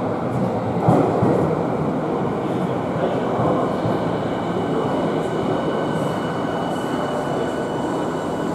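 Electric commuter train moving at an underground station platform: a steady rolling rumble, a brief louder swell about a second in, and a thin high whine from about three seconds in.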